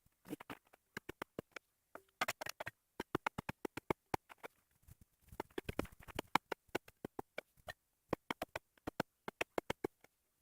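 Digging tool chipping and scraping into hard shale ground while a hole is dug by hand: rapid, irregular sharp clicks and knocks, several a second, with a denser scraping stretch around the middle.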